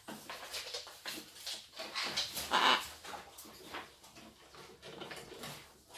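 A macaw playing on its stand: a run of short clicks and knocks from beak and wooden toys, with brief harsh macaw vocal sounds. The loudest burst comes about two and a half seconds in.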